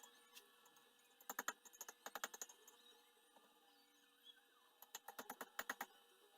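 Hammer tapping steel on an anvil in two quick runs of sharp, light strikes, about ten in each, the first a little over a second in and the second about five seconds in.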